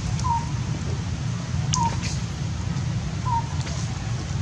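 A bird calls a short, slightly falling note, repeated about every second and a half, over a steady low rumble, with a few faint clicks.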